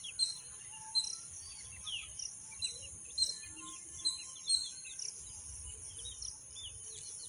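Young country chicks peeping in short, high chirps, one or two a second, over a steady high-pitched background hiss.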